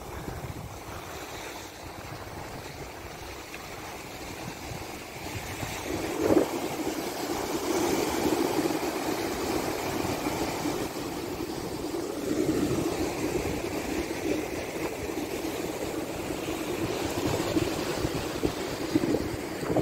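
Surf breaking and washing up on a sandy beach, with wind buffeting the microphone; the sound grows louder about six seconds in.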